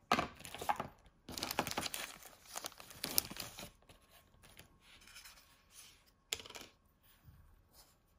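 Clear plastic packaging bag crinkling and rustling as a small fixed-blade knife is pulled out of it and its paper blade cover is slid off. It is loudest in the first few seconds, then gives way to softer handling noise with a sharp tap about six seconds in.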